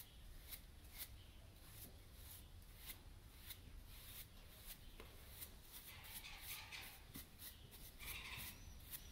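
Stiff-bristled hard grooming brush flicked across a horse's coat in quick repeated strokes, a faint scratchy swish about twice a second, flicking dirt and shed hair off her.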